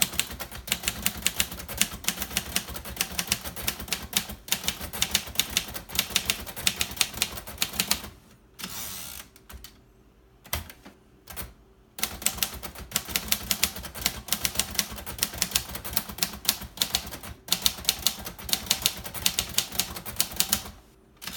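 1956 Royal Quiet De Luxe manual typewriter being typed on quickly, a fast run of key strikes with the typebars clacking against the platen. About eight seconds in the typing stops for a few seconds, broken by a short sliding rasp and a single click, then the rapid keystrokes resume.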